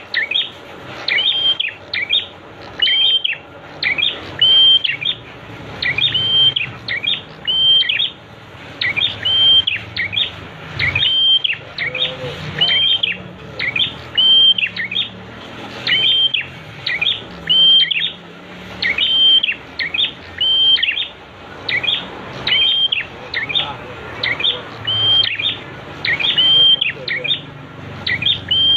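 A prinia (prenjak) calling over and over, a short sharp phrase about once a second that sweeps up and then holds a high note, over a steady background of running water.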